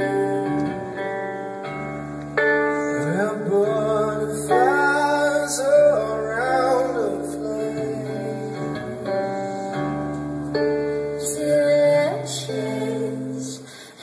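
Live song: a woman singing long held, wavering notes over guitar accompaniment, heard from the audience in a concert hall.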